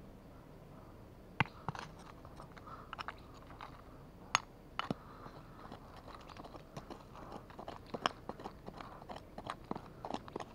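A small metal digging rod scraping and jabbing into stony soil, gravel crunching and pebbles clicking in irregular strokes. The sharpest strokes come about a second and a half in, at about four seconds and at about eight seconds, with a quick run of smaller scrapes near the end.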